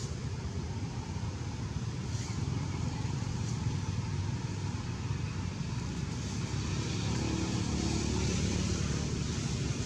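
Steady outdoor background noise: a low rumble with hiss above it. A faint humming tone joins it in the second half.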